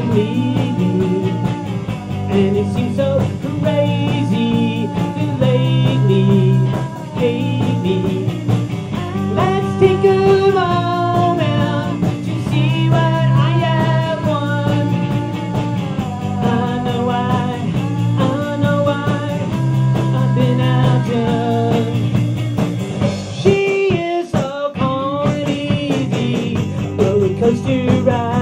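Rock band music led by a finger-plucked electric bass guitar, with a bending melody line above the bass part. The low end drops out for a moment about three-quarters of the way through, then comes back.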